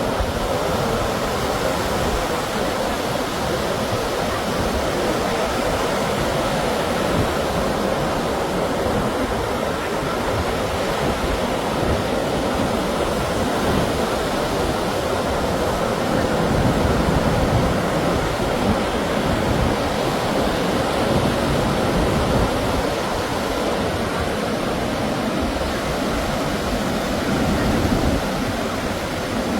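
Steady rushing noise of sea surf breaking on the shore.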